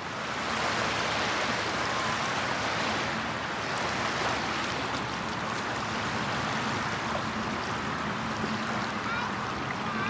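Steady rushing wash of river water lapping at a sandy shore, with a faint, steady low hum from a distant motorboat underneath.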